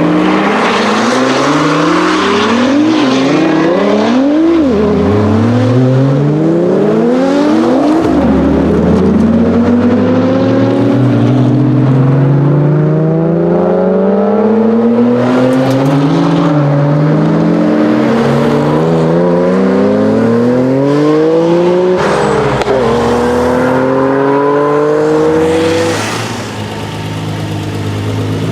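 Nissan GT-R engine accelerating hard through the gears: the pitch climbs again and again and drops at each upshift, with a few quick short revs in the first few seconds. The level dips briefly near the end.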